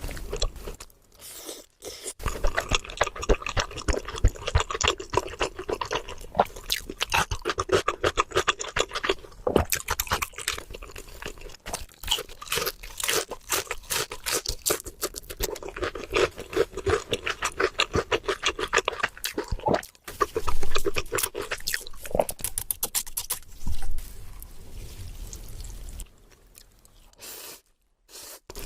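Close-miked eating sounds: a person chewing sushi, with dense rapid wet clicks and smacks of the mouth. There are short pauses about a second in and again near the end.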